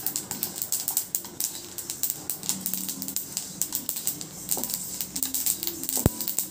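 White sesame seeds dry-roasting in a hot kadai, crackling and popping in a dense irregular patter: the sign that they are roasted enough to come off the heat. A single sharp knock about six seconds in.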